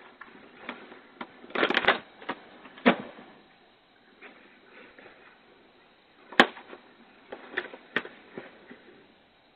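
Wild mules rummaging in plastic trash bags: irregular crinkling and sharp clicks, a dense burst about two seconds in and a single sharp crack a little past the middle. Heard through a security camera's microphone, thin and cut off in the highs.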